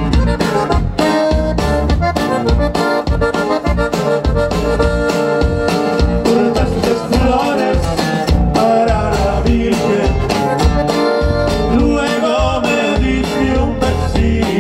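Live conjunto music: a diatonic button accordion plays the melody over electric bass and drum kit, with a steady, even beat. A man's singing voice comes in near the end.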